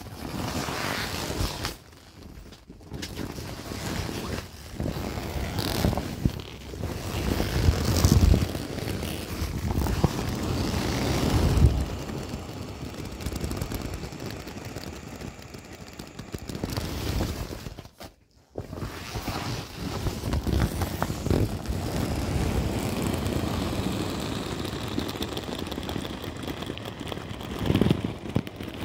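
Air rushing out of a large inflatable vinyl corgi toy's open valve as the body is pressed down, mixed with vinyl rubbing and crinkling against itself. The rushing is steady, with heavier low surges about 8 and 11 seconds in and brief breaks near 2 and 18 seconds in.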